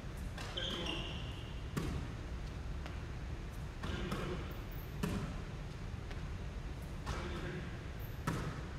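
Basketballs hitting a hardwood gym floor during a three-point shooting drill: a sharp bounce about every three seconds, with softer hits between, over a steady low hum.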